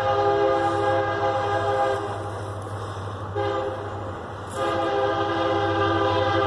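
Union Pacific SD70M locomotive's multi-chime air horn sounding a long blast, a short one and another long one, the tail of a grade-crossing signal, over the steady low rumble of the passing diesel locomotives.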